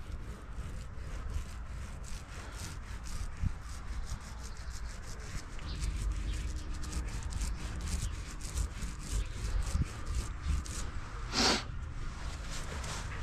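Paint roller rubbing white paint onto the side of an electrical box in quick repeated strokes, with a brief louder hiss near the end.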